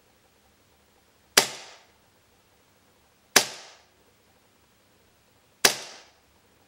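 Tokyo Marui Detonics .45 gas blowback airsoft pistol firing three single shots about two seconds apart. Each shot is a sharp crack of the gas discharge and the slide cycling, dying away in about half a second.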